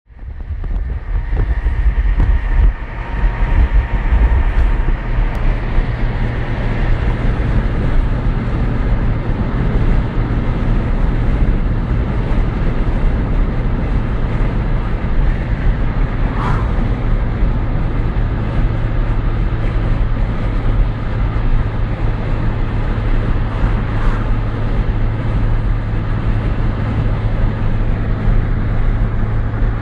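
Car driving along a road: steady engine and tyre noise with a low hum.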